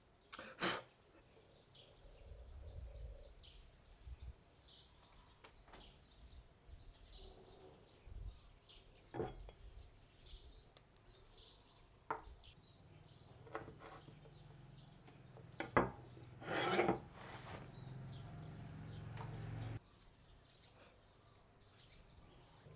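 Hand work on a wooden piece: scattered wooden knocks and short rasping scrapes, with a low hum in the middle that stops abruptly near the end.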